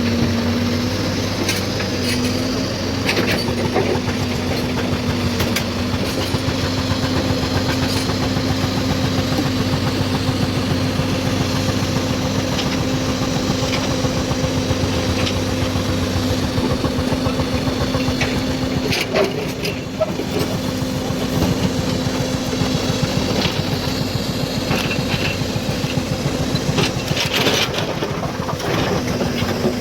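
Hydraulic excavator's diesel engine running steadily, with scattered sharp knocks and clatters of the machine working rock.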